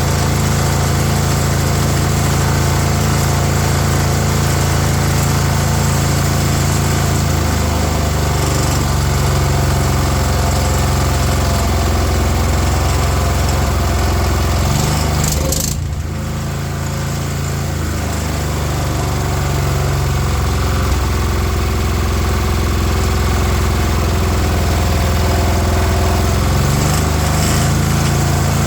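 Small single-cylinder petrol engine of a water blaster (pressure washer), running with its pump removed on a freshly fitted carburetor. Its speed shifts a few times, and a little past halfway it dips briefly in loudness before picking up again.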